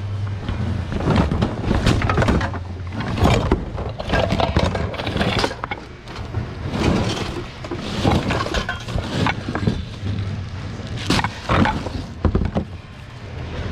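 Hands rummaging through a bin of mixed secondhand goods: irregular clattering, knocking and rustling of objects shifting against each other, over a steady low hum.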